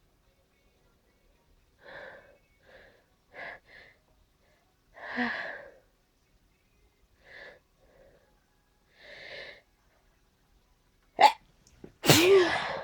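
A person's allergy sneezing fit: a series of short, soft breaths and sniffles, then two loud sneezes in quick succession near the end, the first short and sharp, the second longer and voiced.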